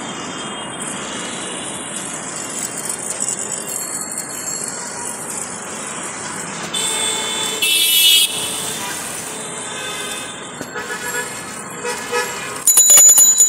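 City road traffic heard from a cycle rickshaw: a steady rumble of engines and tyres. A vehicle horn sounds for about a second and a half, seven seconds in, and shorter horn toots follow. A louder burst of sound comes near the end.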